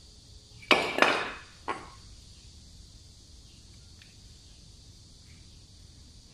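Metal clanking: two loud sharp clanks about a second in, then a lighter one shortly after, over a steady faint hiss.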